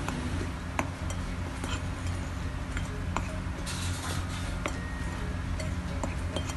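Metal spoon stirring dry flour and spices in a ceramic plate: a soft scraping with scattered light clinks of the spoon against the plate, over a low steady hum.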